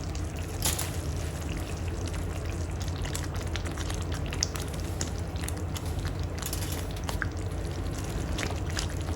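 Tomato masala sauce cooking in oil in a pan on low flame: a steady sizzling hiss with a few faint clicks, over a low steady hum.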